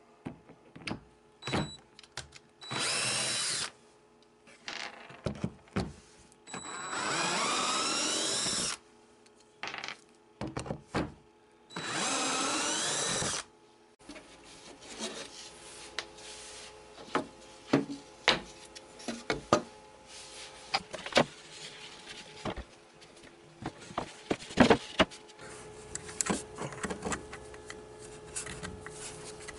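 An electric drill/driver runs in three bursts of a few seconds each, its whine rising and falling with the trigger, driving screws into the spoilerboard. After that come scattered clicks, knocks and rubbing of hands at work.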